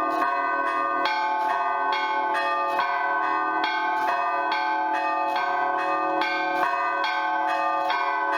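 Russian Orthodox church bell ringing (zvon) on eight old bells: a large main bell (blagovestnik), four mid-sized and three small chiming bells. They are struck in a quick, even, continuous pattern, and the ringing tones overlap.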